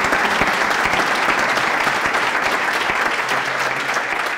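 Audience applauding: dense, steady clapping from many hands that eases slightly near the end.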